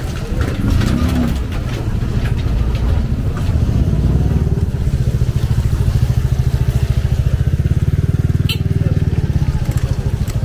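Small motorcycle engine running with a rapid, even pulse. It grows louder from about a third of the way in and is loudest near the end as it comes close.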